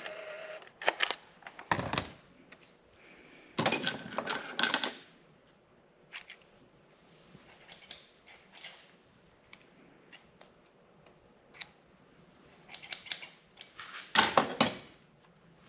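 Small hand tools and wire being handled at a bench: scattered sharp clicks and snips, with a dense run of clicking about four seconds in and another near the end.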